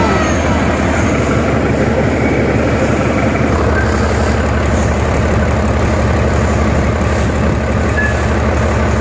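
Mercedes-Benz six-cylinder truck diesel engine running steadily at idle, with no exhaust manifold fitted. The engine is freshly overhauled, with newly calibrated injectors and injection pump.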